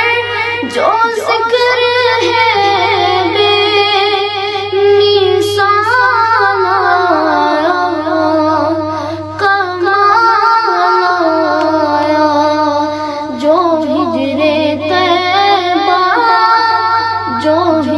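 A boy singing a naat (Islamic devotional song) solo into a microphone, in long, wavering, ornamented phrases, over a steady low hum.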